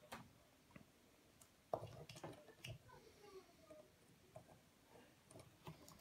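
Near silence: room tone with a few faint clicks and taps from tools being handled.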